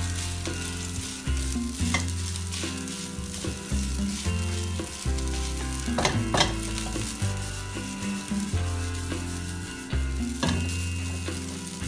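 Carrot and egg fried rice sizzling in a nonstick wok while a spatula stirs and tosses it, with a few sharper scrapes or knocks of the spatula against the pan.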